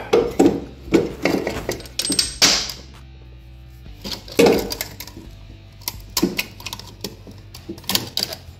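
Irregular metallic clinks and knocks as a Harley-Davidson Shovelhead cylinder head is shifted on its cylinder and a head bolt is started by hand, with a brief scrape a couple of seconds in.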